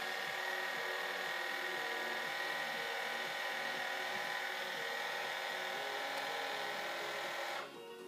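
Meade ETX-80 telescope's motorised GoTo mount slewing on its own to an alignment star: a steady electric motor whine that cuts off suddenly near the end as the slew finishes.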